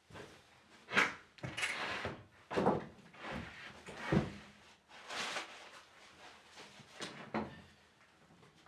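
Plywood floor panels being shifted and lifted: irregular wooden knocks, bumps and scrapes, the sharpest knock about a second in.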